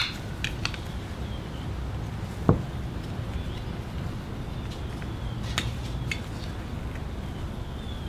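A handful of light clicks and taps of plastic carburetor parts being handled (the float and float bowl of a Briggs and Stratton 550EX carburetor), the sharpest about two and a half seconds in, over a steady low background hum.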